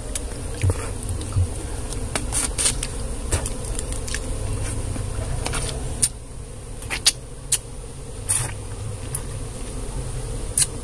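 Wild honeybees buzzing steadily around their opened nest. Sharp wet clicks and smacks come now and then as honeycomb is chewed.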